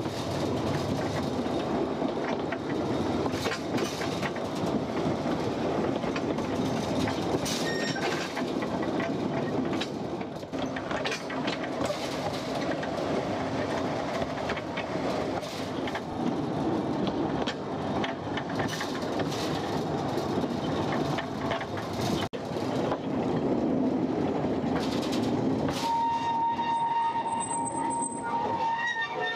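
Narrow-gauge mine railway train running on its track, a steady rumbling rattle with frequent sharp clicks and knocks from the wheels and cars. Near the end a steady high-pitched tone comes in and holds.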